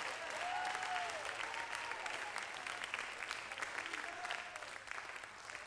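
A congregation clapping and applauding, slowly dying down, with a few faint voices calling out.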